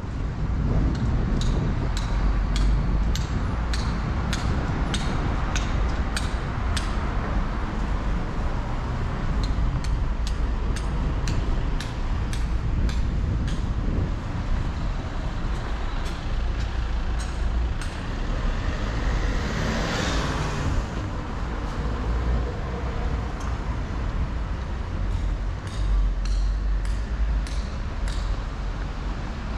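Steady city street traffic noise, with footsteps ticking on the pavement about twice a second. About twenty seconds in a vehicle passes close by, its noise swelling and then fading away.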